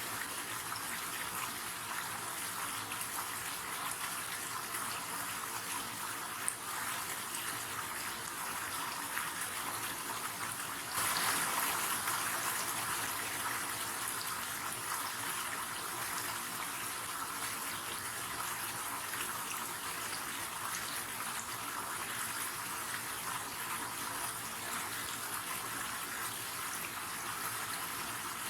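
River water rushing steadily, a continuous hiss of flowing water. It grows a little louder about eleven seconds in, then slowly eases back, with one brief faint click about six seconds in.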